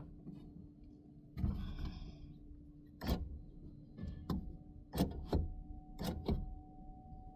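Sharp clicks and knocks of parts being handled inside a car door while a window is set onto its new window regulator: a brief rustle about a second and a half in, then about six clicks in the second half, over a faint steady hum.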